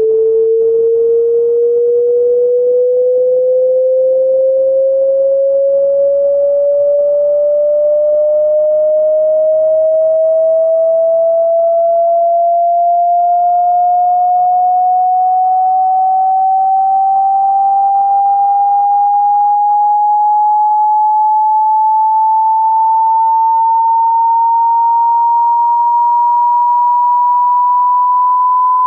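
Electronically generated pure sine tone sweeping slowly and smoothly upward in pitch, rising by a little over an octave: a loudspeaker test frequency sweep.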